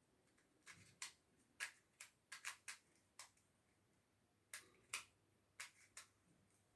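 Plastic windmill pyraminx puzzle being twisted by hand: a dozen or so sharp clicks of its layers turning, coming in irregular clusters with short pauses between.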